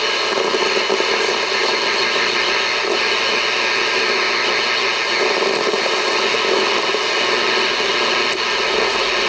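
Hammarlund SP-600 vacuum-tube shortwave receiver putting out steady, loud static and hiss through its speaker while it is tuned around the 12 MHz shortwave band.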